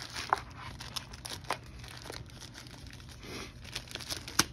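Thin protective wrapping crinkling and rustling in irregular crackles as it is handled and peeled off a small device, with a sharper crackle near the end.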